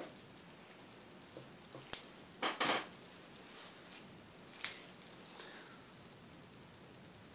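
A few light clicks and knocks, with a short rustling clatter about two and a half seconds in as the loudest sound: things being handled and set down on the painting table, over a faint steady hiss.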